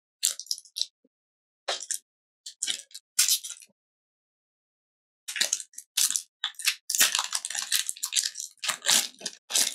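Pokémon trading cards and their packaging being handled: irregular rustling and crinkling in short bursts, sparse at first and almost continuous from about five seconds in.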